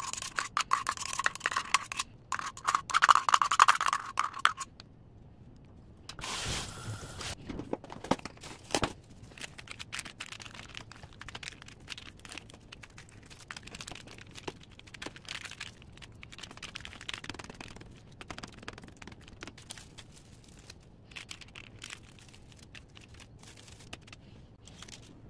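Scraping of a metal spoon against a metal cup as grated garlic paste is scraped out. From about six seconds in, cling film and oven paper crinkling and rustling as hands press the film flat over the paste.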